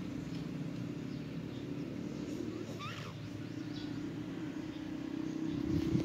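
Chow chow dog snoring in its sleep: a low, steady snore that grows stronger in the second half.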